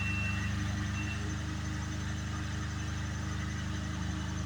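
A large engine running steadily, a low, even hum with a fast regular pulse.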